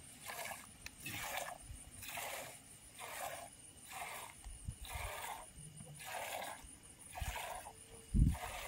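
A goat being milked by hand: streams of milk squirting into a pail in a steady rhythm of hissing squirts, about one a second. A dull thump comes near the end.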